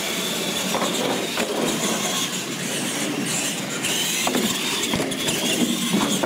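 Electric R/C monster trucks driving on a concrete floor: motor and gear whine rising and falling with the throttle, over tyre noise, with a few sharp knocks as the trucks hit ramps and land.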